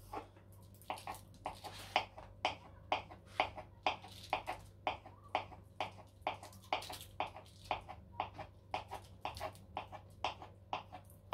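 Kitchen knife dicing crab sticks on a wooden cutting board: a steady run of sharp knocks, about two to three a second.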